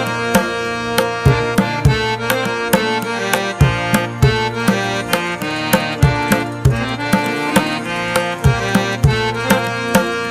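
Background instrumental music: a steady hand-drum rhythm under sustained held notes.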